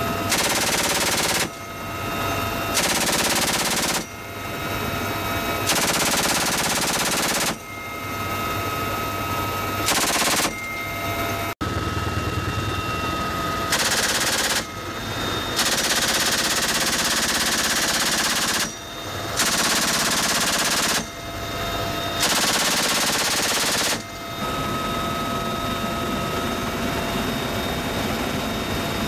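Helicopter door-mounted machine gun firing in about eight bursts, from under a second to about three seconds long, over the helicopter's steady turbine and rotor noise. For the last few seconds only the helicopter noise goes on.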